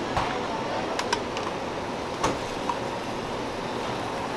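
A few light clinks of a metal spoon against an aluminium stockpot of boiling water as tortelloni are stirred, over a steady rushing kitchen background noise.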